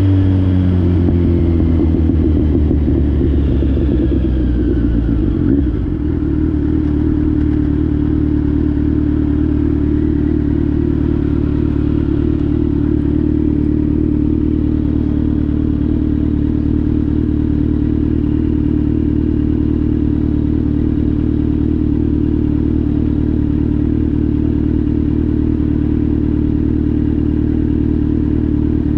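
Kawasaki Z900's inline-four engine through an SC-Project GP1 exhaust, its revs dropping in the first second, then idling steadily, with a brief knock about six seconds in.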